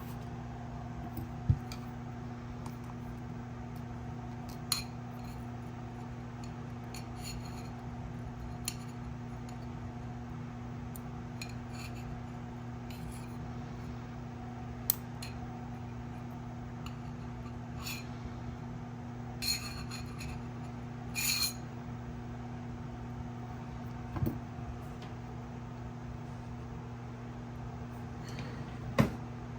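Small metal tools clicking, tapping and scraping on small metal flashlight parts while old thermal paste is cleaned off, about a dozen short sharp clicks and a few brief scrapes spread out, over a steady low electrical hum.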